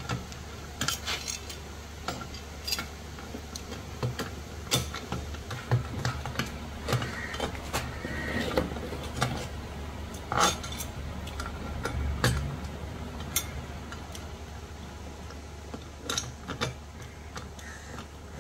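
Hand tools clinking and scraping against the gear and shaft of a Yamaha outboard's lower-unit gearcase as it is taken apart: irregular sharp metal clicks and knocks over a steady low hum.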